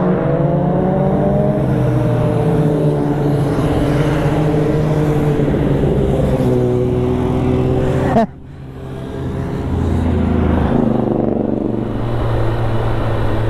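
Motor vehicle engine noise, with several engine notes sliding slowly down in pitch at first. The sound cuts off sharply about eight seconds in, then builds back to a steady low engine note.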